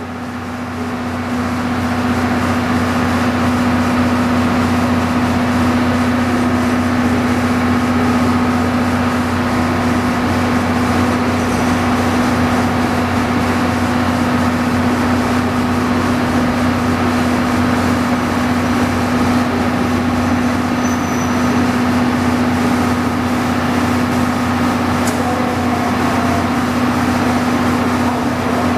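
Diesel railcar engines of a KiHa 54 and KiHa 40 train running as it pulls into the platform, growing louder over the first couple of seconds and then holding a steady, constant hum as the railcars sit close by.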